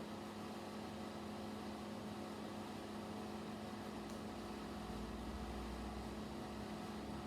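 Steady low electrical hum over a faint hiss, with a single faint click about four seconds in.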